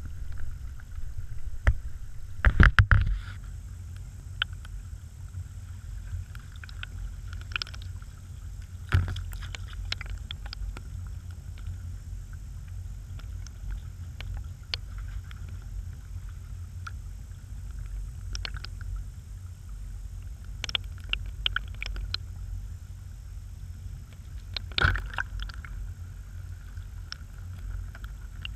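Shallow stony creek flowing, heard as a steady low rumble, with occasional sharp splashes from wading in the water; the loudest come about three seconds in and again near the end.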